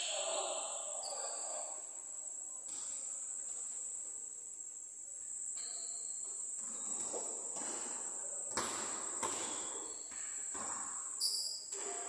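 Basketballs bouncing now and then on an indoor court, each bounce echoing in the large hall, under a steady high-pitched drone.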